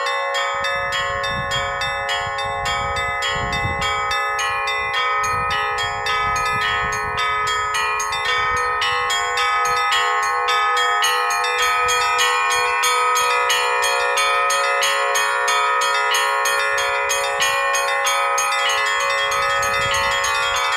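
Russian bell ringing (zvon) on a portable belfry of bells cast by the Dyachkov bell foundry: several bells struck in quick, rhythmic strokes, their tones ringing on and overlapping. The strikes grow denser in the last few seconds.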